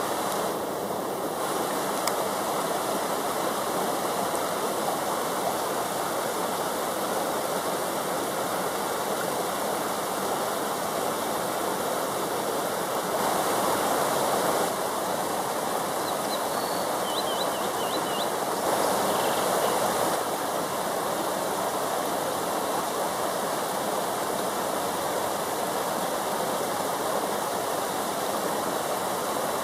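River water rushing over rocks, a steady even rush that swells briefly twice. About halfway through, a small bird gives a few faint, short high chirps.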